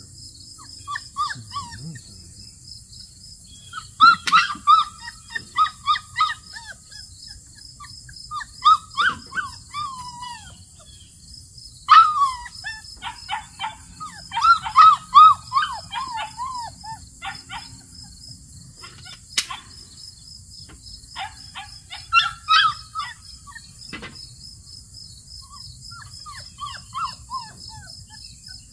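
St. Bernard puppy whining in several bouts of short, high, falling cries with pauses between them, a puppy's bid for sympathy. A steady high insect trill runs underneath.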